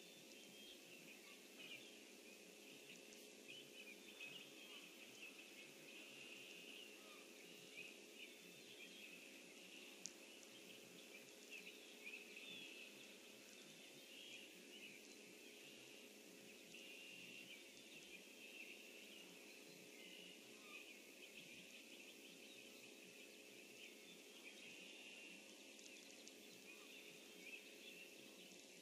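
Faint outdoor ambience: a distant chorus of birds chirping continuously, over a low steady hum.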